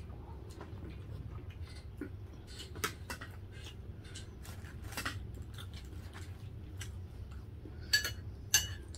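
Eating at the table: chewing, with small clicks of metal spoons against ceramic plates and bowls. Two sharper ringing clinks of a spoon on a bowl come near the end.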